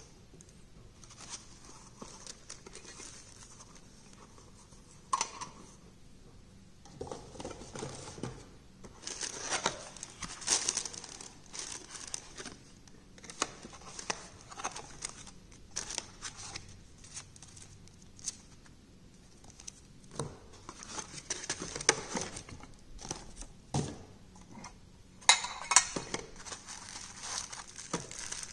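Cardboard watch boxes, paper inserts and plastic wrapping being handled and opened: irregular rustling and crinkling with small knocks, louder near the end.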